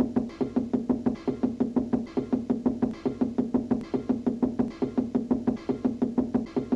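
Cartoon knocking sound effect of knuckles rapping on a wall: a fast, even run of knocks, about six or seven a second, each with a short low ring.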